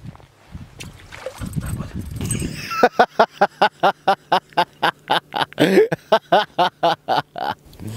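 A man laughing heartily: a long run of quick ha-ha pulses, about four or five a second, starting about three seconds in.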